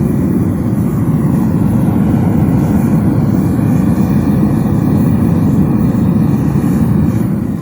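Gas-fired melting furnace burner running flat out: a loud, steady rushing noise that stops near the end.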